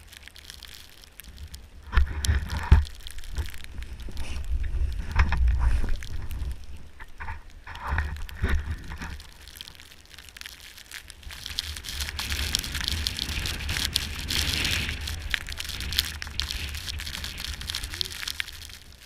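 A snowboard sliding and scraping over snow, with wind buffeting the microphone in low rumbles. There are a few sharp knocks about two seconds in, and a broad hiss of the board on snow in the second half.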